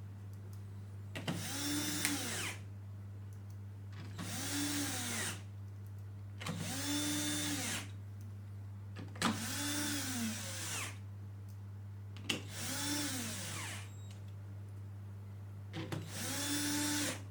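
A cordless power driver running six times in short bursts, each run speeding up and winding down again: screws being driven in while the unit is reassembled. A steady low hum sits underneath.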